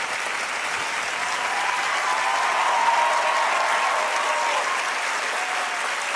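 Studio audience applauding steadily, swelling slightly toward the middle.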